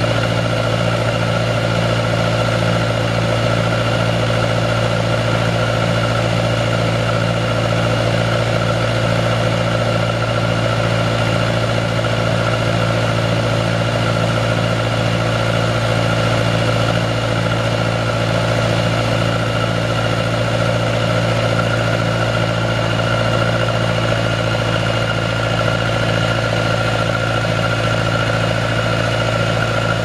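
International 2424 tractor's four-cylinder diesel engine idling steadily.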